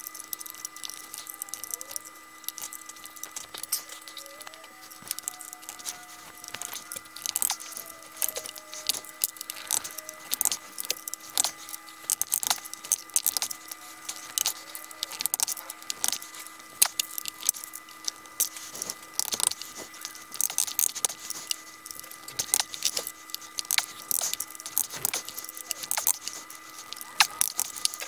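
Angled Allen wrench working a long screw into a wooden bar-stool leg: irregular metal clicks and clinks as the hex key is turned and re-seated stroke after stroke. The screw is binding in a pilot hole that is too narrow for it, close to stripping out.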